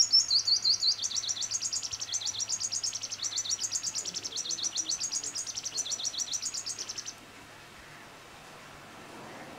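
Purple sunbird singing: a rapid run of high, thin notes that stops about seven seconds in.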